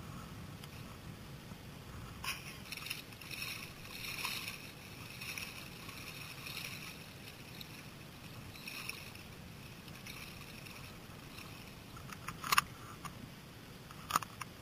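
Sea water lapping and splashing around a wading angler, over a low wind rumble, with a few sharp clicks or knocks near the end.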